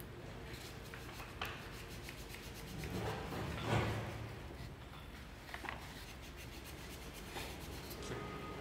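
Wooden workpieces handled and rubbed together, with a few light knocks and a louder rub about three to four seconds in.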